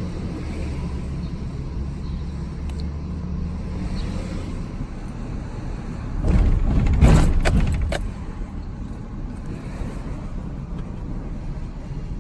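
Truck driving with a steady low road rumble; about six seconds in a louder burst of rattling and knocking lasts around two seconds.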